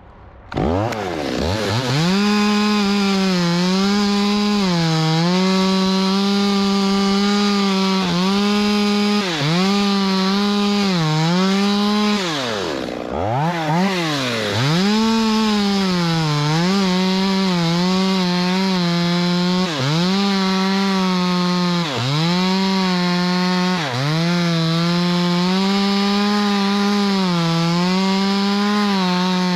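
Chainsaw held at full throttle, cutting into the fibrous trunk of a fan palm. It revs up about half a second in, and its pitch dips briefly every second or two as the chain loads in the cut. About 13 seconds in the engine drops right down and revs back up again.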